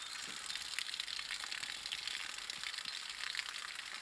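Beef cow grazing close by: a steady crackle of many small tearing and crunching clicks as grass is cropped.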